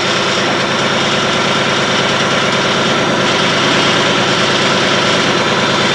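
LS XJ2025 compact tractor's diesel engine running steadily, powering the backhoe hydraulics.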